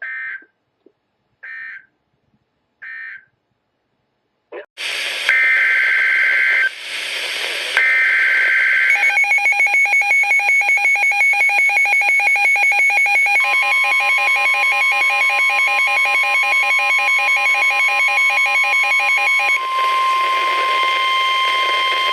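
NOAA Weather Radio alert signalling. First three short digital data squawks, the end-of-message code of the previous broadcast. Then longer two-tone screeching SAME header bursts. From about nine seconds in comes a loud pulsing multi-tone alarm, joined about four seconds later by the steady 1050 Hz weather radio warning tone, which holds to the end and heralds a severe thunderstorm warning.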